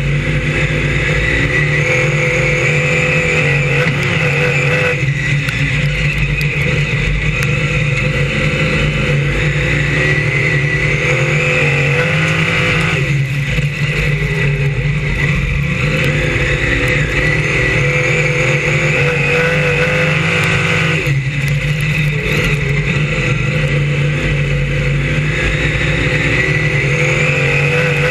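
BriSCA F1 stock car's V8 engine heard on board at racing speed, its pitch climbing as it accelerates down each straight and dropping sharply as the driver lifts for the bends, about every eight seconds.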